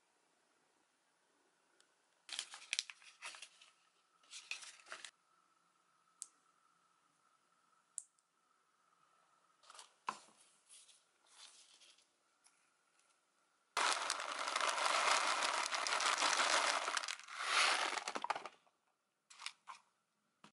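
Handling noises of seed-sowing supplies: scattered short rustles and light taps, then about five seconds of loud, continuous rustling starting near the two-thirds mark, followed by two brief rustles near the end.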